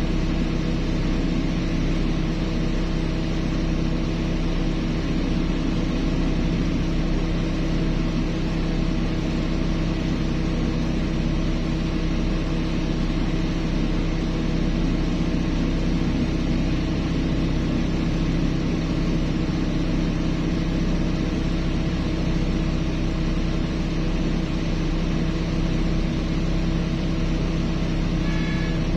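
Heavy diesel engine of mining machinery running at a steady speed, a constant hum that neither revs nor changes. Near the end a brief, faint higher tone sounds.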